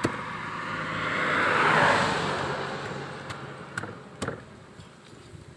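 A motor vehicle passing by. Its engine and tyre noise swells to a peak about two seconds in and then fades. Near the end, a few sharp knocks of a chopping knife on a wooden stump.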